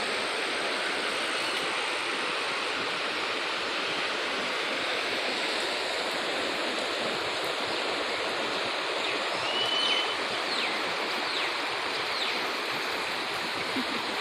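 River water flowing, a steady, even rushing noise, with a few faint high chirps near the middle.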